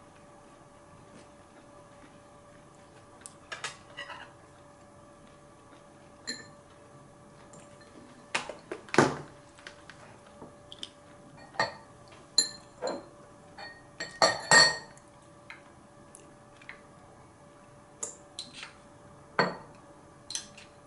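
Tableware clinking during a meal: metal chopsticks and spoons tapping and scraping against ceramic bowls and plates in scattered short clicks. The loudest clatters come about nine seconds in and again around fourteen to fifteen seconds in.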